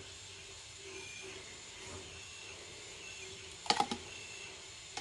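A paintbrush knocked against a plastic water tub while being rinsed: a quick cluster of sharp taps about three and a half seconds in, over a faint steady hiss.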